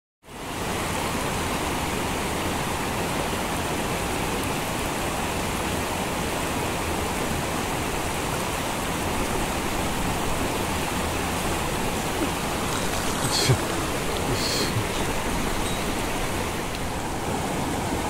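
Mountain stream rushing steadily, with two light clicks a little after halfway.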